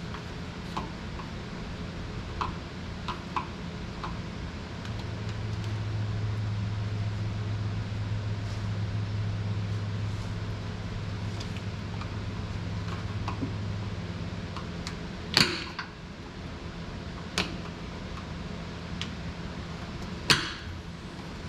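Scattered sharp clicks and knocks from working at a stubborn airline fitting on a semi cab air bag, the three loudest about 15, 17 and 20 seconds in. Under them a steady low hum, louder for about ten seconds in the middle.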